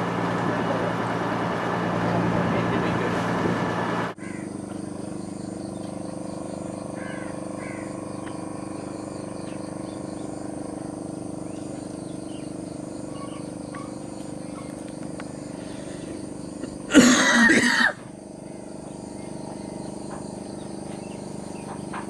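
A boat engine runs loudly for about four seconds, then cuts off abruptly to a quieter steady hum with faint bird chirps. About two-thirds of the way through, a loud rush of noise lasts about a second.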